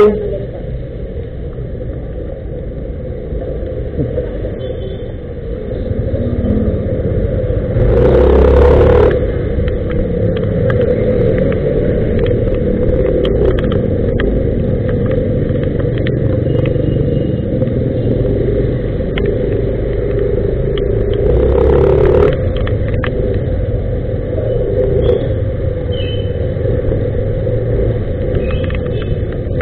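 Motor scooter engine running as the bike pulls away and rides along a wet street, with a steady low rumble and road noise that grow louder about six seconds in. Two louder rushes of noise come about eight and twenty-two seconds in.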